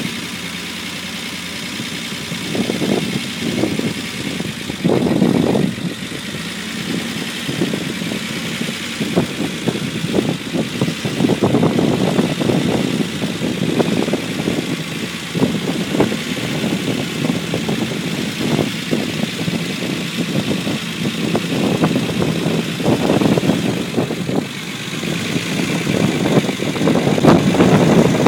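Unimog 404's petrol straight-six engine running near idle, unevenly, with irregular swells in level every few seconds.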